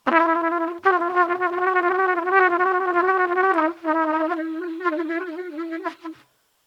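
Trumpet holding one wavering, shaky note for about six seconds, briefly dipping about two-thirds through, then cutting off.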